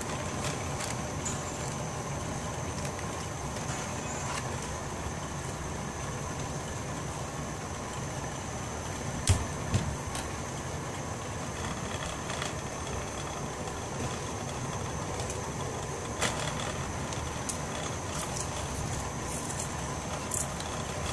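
Steady rushing hiss of a gas stove burner under a pot of lentils simmering in water, with light bubbling. A couple of brief low knocks come about nine seconds in, and a short click comes near sixteen seconds.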